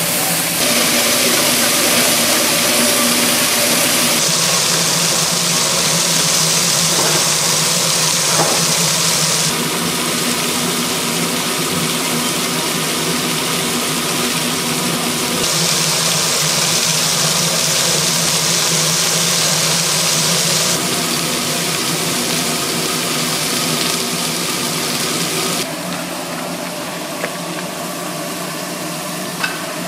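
Steady mechanical hum with a loud hiss over it, the running of a fish-grilling kitchen's equipment. The hiss shifts abruptly in level every five seconds or so.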